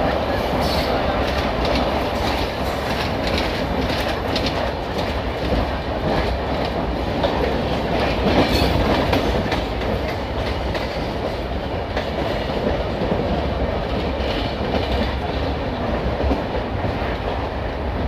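Passenger train running along the track: a steady rumble of wheels on rails with scattered clicks as the wheels cross rail joints.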